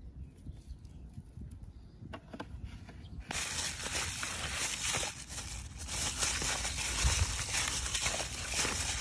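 Quiet at first; about three seconds in, a plastic bag worn over a hand starts crinkling and rustling steadily, with small crackles, as it rubs marinade into raw beef ribs.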